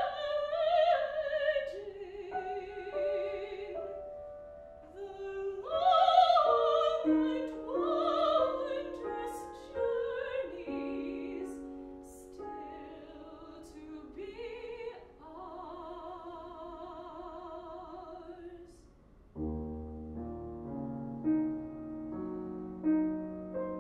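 A woman singing in a classical style with vibrato, accompanied by a grand piano. Her phrases end on a long held note, and about 19 seconds in the voice stops and the piano plays on alone.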